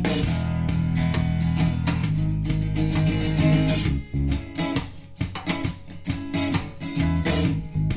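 Instrumental music with guitar, played through a hi-fi bookshelf loudspeaker and picked up by a microphone. About halfway through, the dense, steady sound thins out into sparser rhythmic hits.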